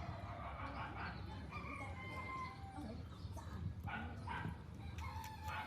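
Faint animal calls, a dog among them, with a few short pitched cries scattered through, and a sharp knock near the end.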